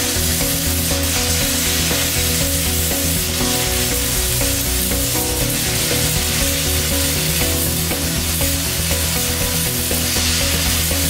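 Stick (MMA) welding arc from a Würth EWI 160 inverter welder burning a coated electrode: a steady crackling hiss, with background music underneath.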